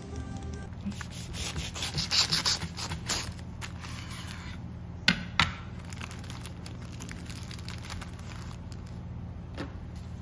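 Brown wrapping paper crinkling and rustling as a sandwich is folded up in it by hand, densest in the first few seconds, followed by two sharp clicks about half a second apart and a faint steady hum under it all.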